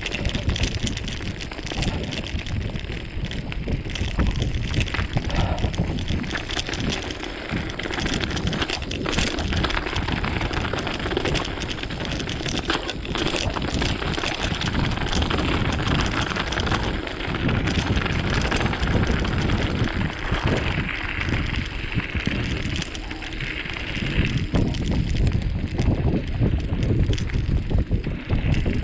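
Mountain bike riding down a rough trail: continuous tyre rumble and rattling clicks over bumps, with wind buffeting the microphone.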